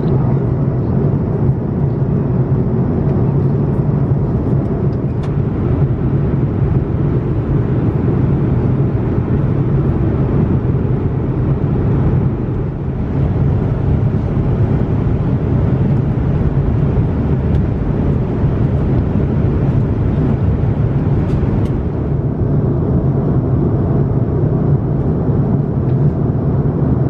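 Steady drone of an Airbus A340-600 in cruise, heard inside the cabin: engine and airflow noise with a low hum, briefly dipping twice.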